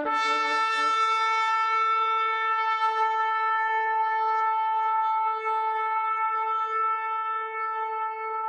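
A shofar sounding one long held note that starts abruptly, steady in pitch with a bright series of overtones.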